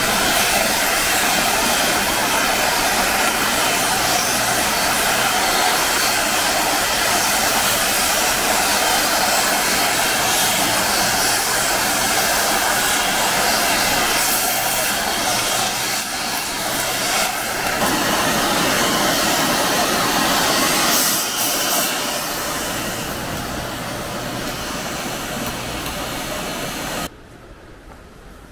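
Steady roar of a fast-flowing mountain river rushing past the bridge piers. Near the end it drops suddenly to a much quieter outdoor background.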